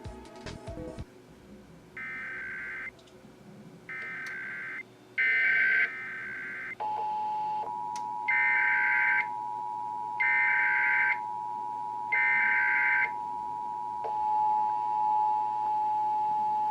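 Sage EAS ENDEC sending an Emergency Action Notification: short blocks of warbling digital header data, each about a second long. About seven seconds in the steady two-tone attention signal begins and holds, with three more data blocks sounding over it.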